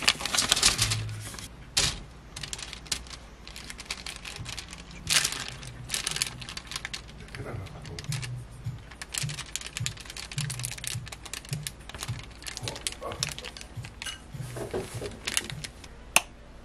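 Handling of steamed kabocha squash on a paper-towel-lined wire air fryer basket: pieces set down and pressed flat with the bottom of a small glass, giving a run of soft clicks, taps and paper rustles, with one sharp click near the end.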